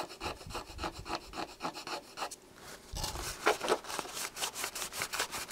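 Fast back-and-forth scrubbing on the plastic display bezel of a Keithley 2015 multimeter, about five strokes a second, with a short pause a little past two seconds in. The strokes are rubbing acetone-softened paint off the plastic.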